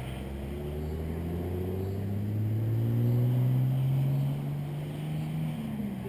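Engine of a historic car approaching unseen, its note climbing steadily and growing louder as it accelerates, then the level drops about four seconds in and the pitch falls as the driver eases off.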